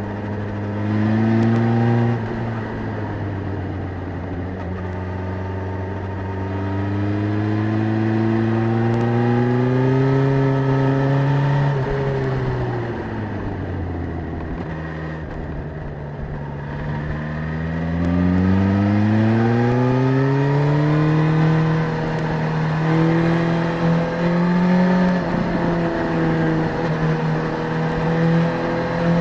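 Suzuki GSX-S1000's inline-four engine under way: its pitch climbs slowly under throttle, drops away about twelve seconds in as the bike slows, then climbs again and holds with small dips near the end.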